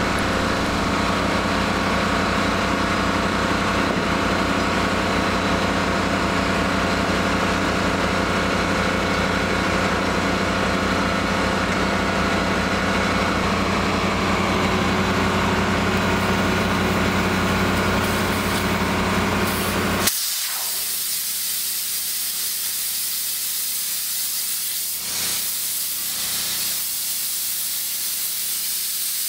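Compressed air hissing hard from an air blow gun being used on a truck wheel, over a steady engine running. About two-thirds of the way in the engine sound drops away suddenly, leaving the strong, even hiss of the air jet with a couple of brief swells.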